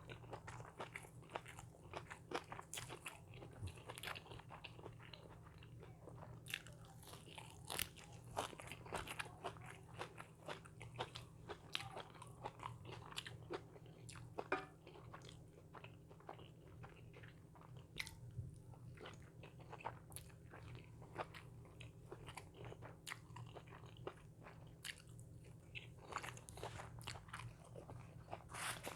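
A person eating crunchy food close to the microphone: repeated bites and crisp crunching chews, irregular throughout, with a steady low hum underneath.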